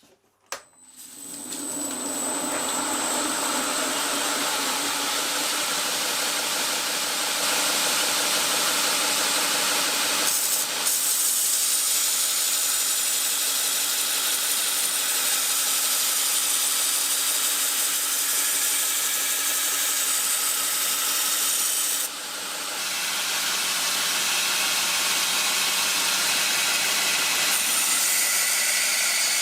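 Belt grinder switched on and spinning up over a couple of seconds, then running steadily with a harsh hiss as a hardened steel kitchen-knife blade is ground on a fresh 80-grit belt to cut the bevel facets. The sound dips briefly about 22 seconds in and picks up again.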